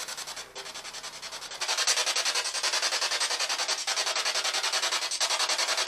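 Spirit box sweeping through radio stations: a steady hiss of radio static, chopped into rapid, regular pulses, which gets louder about a second and a half in.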